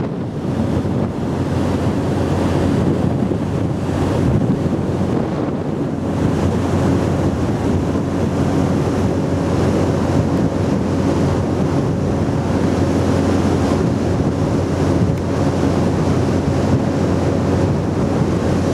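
Wind buffeting the microphone on a ferry's open deck, over the steady low hum of the ship's engines and the rush of sea water along the hull.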